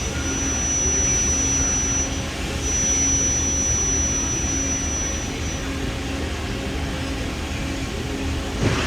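Steady machine hum of a powered-up Amada HDS2204NT CNC press brake, with a thin high whine that sounds twice, for a few seconds each time, in the first half.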